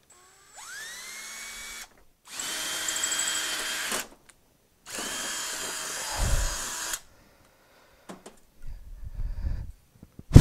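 Cordless drill run in three bursts of a second or two each, drilling into a small painted bracket. Its motor spins up with a rising whine at the start of each burst and then holds steady. A few low thumps follow, and a sharp, loud knock comes right at the end.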